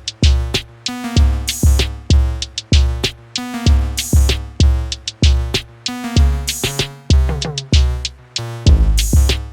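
Electronic dance music: a drum-machine beat with heavy, regular bass-drum kicks under synthesizer notes.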